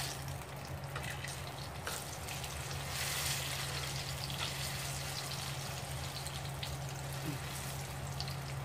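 Banana rolls (turon) frying in oil in a nonstick pan, sizzling steadily, with a few light clicks of tongs against the pan as they are turned. A steady low hum runs underneath.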